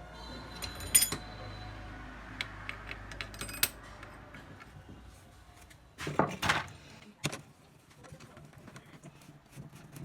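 Metal parts and tools clinking and tapping on a workbench. There are a few ringing metallic strikes about a second in and a brief scraping rush around six seconds in.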